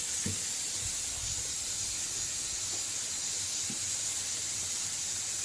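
Butane gas burner flame hissing steadily as a plucked chicken is singed over it, with a couple of faint knocks.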